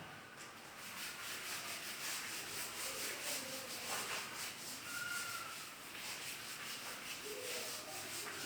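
Paper rustling: a book's pages being leafed through, soft rubbing and riffling.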